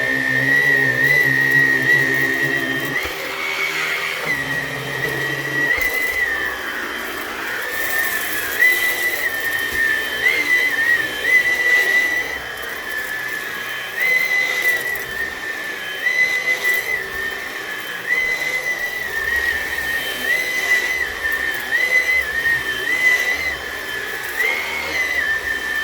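Hoover Onepwr Blade cordless stick vacuum running in Eco mode with its carpet roller on while it is pulled across a shag rug. The motor gives a steady high whine that shifts slightly in pitch about every two seconds.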